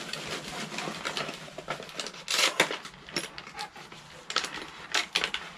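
Cardboard and plastic packaging rustling and crinkling as a small boxed tool is unpacked by hand, with scattered clicks and light knocks. The loudest rustle comes about two and a half seconds in.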